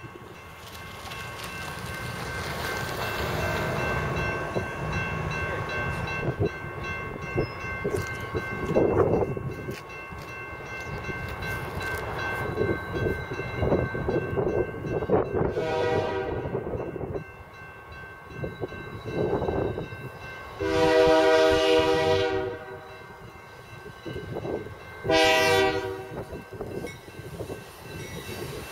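Canadian Pacific GE diesel locomotive approaching with a rumble and sounding its air horn three times: a long blast about halfway in, a louder long blast, then a short one. This is the start of the long-long-short-long grade-crossing signal, whose final long blast follows just after.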